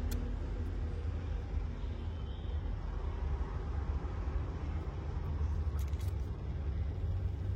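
Steady low background rumble, with a couple of faint clicks about six seconds in.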